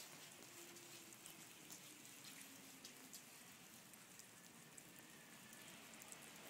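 Near silence, with a faint scattered ticking of falling drops.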